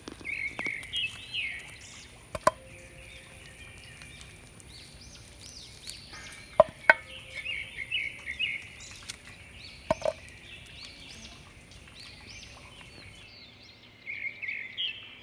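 Birds calling repeatedly in the background in short, high, rising-and-falling calls that come in clusters. Four sharp knocks with a short ring, from jackfruit bulbs dropped into a metal bowl, are the loudest sounds.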